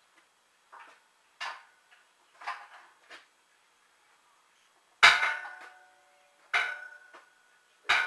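Metal clanking from hands-on work on a steel concrete mixer: a few light clinks, then three louder clangs about five, six and a half and eight seconds in, each ringing briefly.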